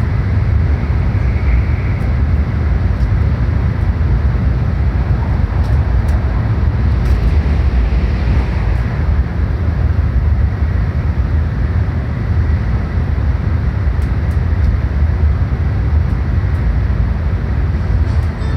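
Shinkansen train running at speed, heard from inside the passenger car: a steady, heavy low rumble of wheels and track with an even rushing noise above it.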